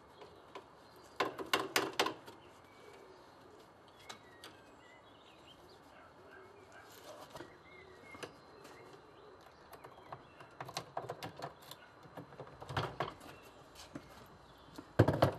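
Scattered clicks and rattles from handling motorcycle-washing gear: a quick cluster about a second in, smaller knocks later and a louder clatter near the end. Faint birdsong runs underneath.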